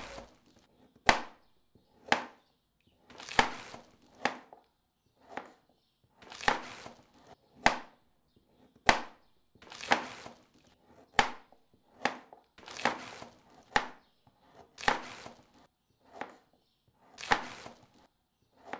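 Knife chopping on a cutting board: a slow series of sharp chops, about one a second, some longer and softer than others.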